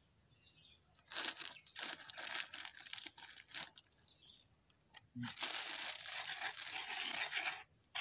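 Thin plastic bags of powder crinkling and rustling as a hand handles them, in two spells of a few seconds each.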